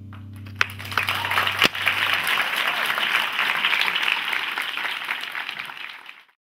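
Audience applauding at the end of a string quartet piece, the quartet's last low chord still sounding under the first claps for about two seconds. The applause fades out quickly near the end.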